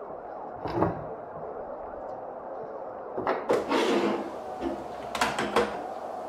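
A wooden drawer knocking shut, then clatter and a few sharp clicks as a pump-action shotgun is picked up and handled on a wooden table, over a steady low hum.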